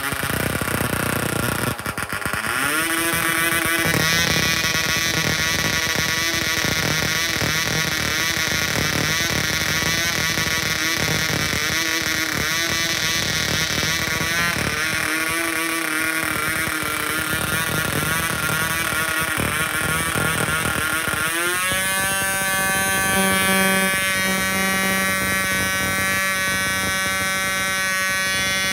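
Gordon Cornell Dynamic 060 diesel model aero engine running on a test stand, swinging an 8x3 propeller. Its pitch rises as it picks up about two to three seconds in, it then runs with a wavering note, and about 21 seconds in it climbs sharply to a higher, steadier speed.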